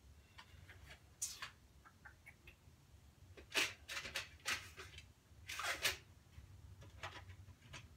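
Someone rummaging through small metal hardware in search of washers: several short, scattered rattles and scrapes, the loudest around the middle, over a low steady hum.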